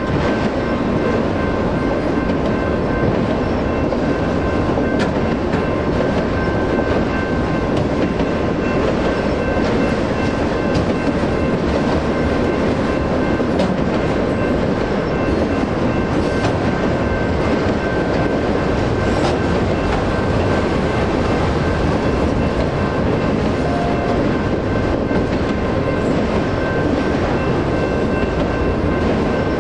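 Autorack freight cars rolling steadily past, with continuous wheel-on-rail rumble and clickety-clack. Over it, the crossing's electronic bell keeps ringing steadily.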